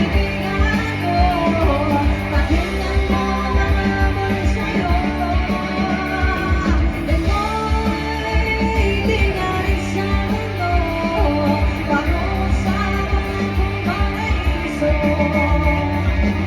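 Live band playing a rock song: guitars over a steady drum and bass beat, with a singer's voice carrying the melody.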